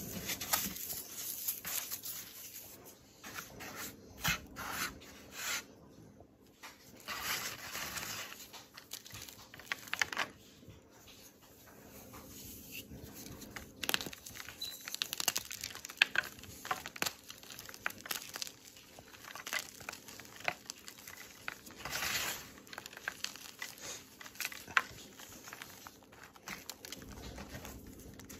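Hands crumbling baking-soda-coated green floral foam, and breaking and pressing blocks of gym chalk into powder: irregular soft crunches and crackles with powdery rustling.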